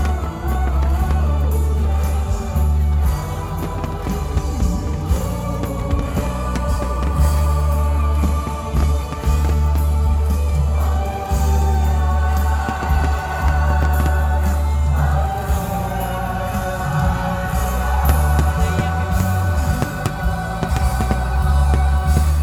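Loud music with a heavy, steady bass and long held notes above it that change every few seconds.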